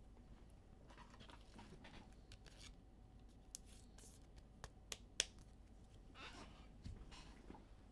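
Near silence broken by faint rustles and a few short sharp clicks of trading cards and their plastic holders being handled. The loudest click comes about five seconds in.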